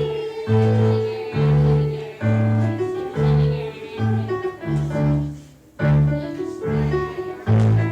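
Music: a piano or keyboard tune over a deep bass note that sounds about once a second, with a held melody line above it.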